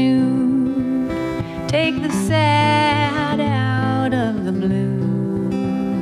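Acoustic guitar strummed steadily in a slow country-folk song, with a sliding, held melody line over it, which swells from about two seconds in and eases off near four seconds.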